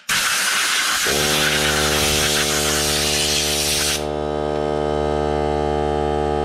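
Compressed air blasting from a blow gun for about four seconds, cleaning a PVC fluid-bed fitting. About a second in, the small portable air compressor's motor starts and runs with a steady hum, carrying on after the air stops as it builds pressure back up.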